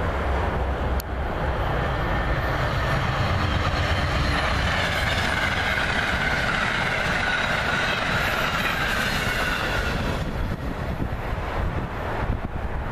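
Amtrak P42DC diesel locomotive and its passenger coaches passing at speed. A low engine rumble for the first few seconds, then the rushing wheel-on-rail noise of the coaches, easing off about ten seconds in as the train moves away.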